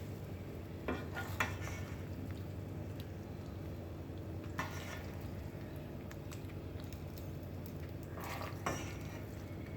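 A utensil stirring and scraping in a pan or dish, with a few short clinks and scrapes about a second in, near the middle, and near the end, over a steady low hum.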